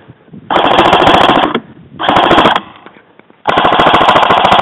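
Airsoft rifle firing on full auto in three bursts of rapid, even shots: a burst of about a second, a short half-second burst, then a longer burst from about three and a half seconds in.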